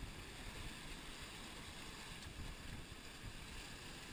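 Steady rush of wind and sea water past a sailing yacht under way, with low, gusty buffeting of wind on the microphone.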